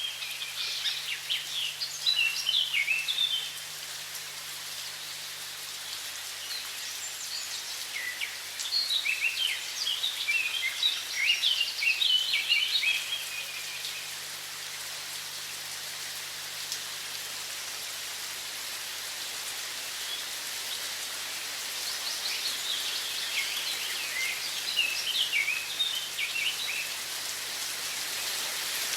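Steady rush of running water, with a songbird singing quick chirping phrases three times: at the start, around the middle, and near the end.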